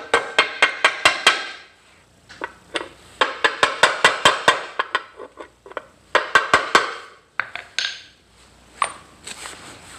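A hammer taps a socket used as a driver, seating sealed ball bearings into a snowmobile's aluminum chain case. There are three quick runs of strikes, about five a second, each with a short metallic ring. A few single knocks follow near the end.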